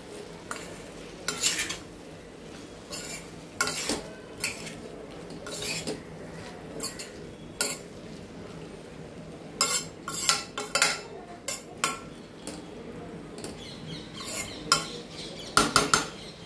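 Metal spoon scraping and knocking against a stainless-steel kadai in irregular strokes as cauliflower and potato pieces are stirred into a thick masala, over a steady low sizzle from the pan.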